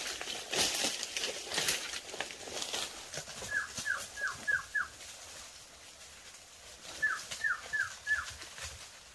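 Footsteps crunching and rustling through dry leaf litter, fading out after about two seconds. Then a run of five short, high, falling calls from an animal, and another run of four near the end.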